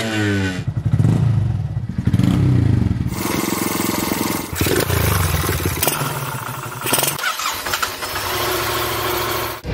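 Motorcycle engines in several short clips cut one after another, changing abruptly every few seconds. An engine revs up at the start, then engines run and rev.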